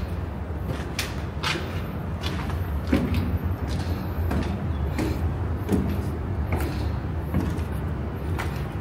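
Footsteps on a hard floor, roughly one step a second, over a steady low rumble.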